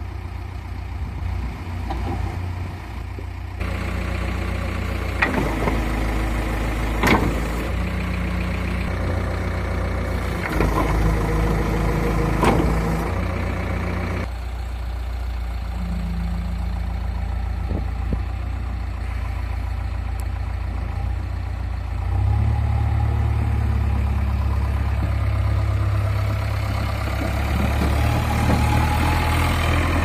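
JCB 3DX backhoe loader's diesel engine running steadily, with a few sharp metallic knocks from the working machine. About two-thirds of the way through the engine note rises and gets louder as the machine works under load.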